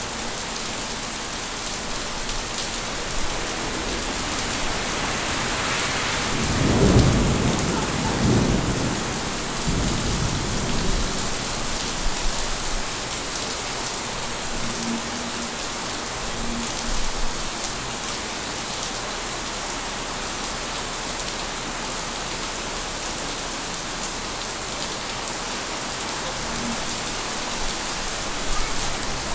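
Steady heavy rain falling, with a roll of thunder about six seconds in that peaks soon after and rumbles away over the next few seconds.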